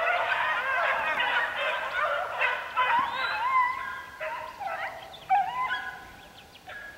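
A pack of beagles baying on a rabbit's trail, far off, with many overlapping voices. The chorus thins and fades away over the last few seconds as the hounds run on.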